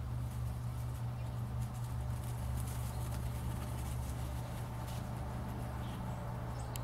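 Light rustling and crackling of dry fallen leaves underfoot as kittens scamper and play, scattered soft crackles rather than a steady rhythm. A steady low hum lies under it.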